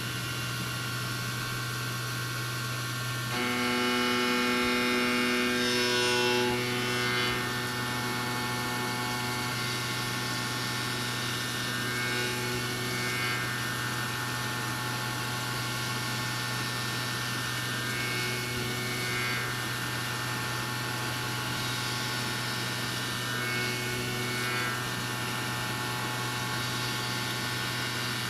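Okuma Genos M560R-V vertical machining center running: a steady hum with several whining tones that shift about three seconds in, and a pattern that repeats roughly every six seconds.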